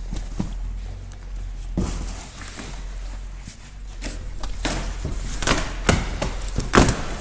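Knocks, clicks and rustling scrapes of a motorcycle shipping crate being cut and pulled open, a few sharp knocks early on and a denser run of louder knocks in the second half, over a steady low hum.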